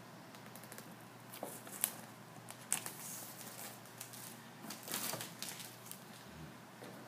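Clear plastic shrink-wrap being peeled off a cardboard laptop box and crumpled by hand, crinkling and crackling in short, irregular spells, busiest about three and five seconds in.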